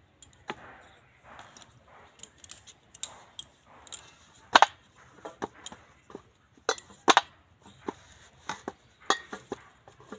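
Biscuit dough being kneaded by hand in a stainless steel bowl: irregular knocks and clinks of the dough and hand against the metal, the loudest a pair about four and a half seconds in and another pair around seven seconds.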